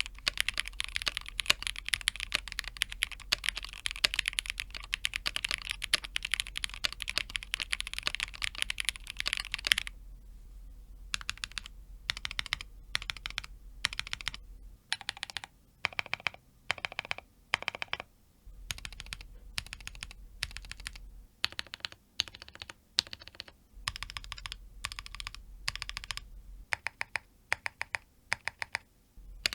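Everglide SK68 mechanical keyboard with Zaku switches and Akko Silent PBT keycaps being typed on: fast, continuous typing for about ten seconds, then slower, separate keystrokes and short runs of keys with pauses between them.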